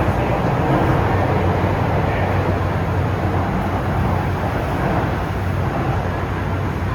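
MTR M-Train running on the Kwun Tong line, heard inside the carriage: a steady rumble of wheels on rail and traction equipment with a low hum.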